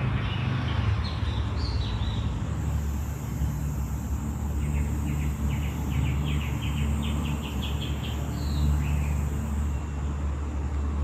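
Steady low rumble of road traffic with a small bird chirping over it, including a quick run of short repeated chirps in the middle.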